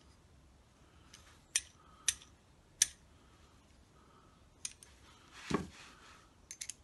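Small sharp clicks as fingers flick the propeller of a die-cast Dinky toy aircraft and handle the model, with three distinct clicks in the first three seconds, a brief rustle, then a quick run of small clicks near the end. The toy's battery motor does not run: no motor whine is heard.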